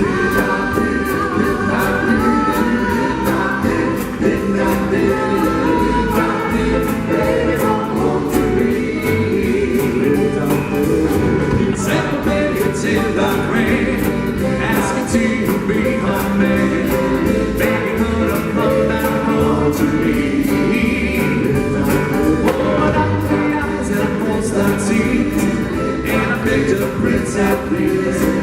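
Live doo-wop vocal group singing a song in harmony over a backing band with a steady drum beat.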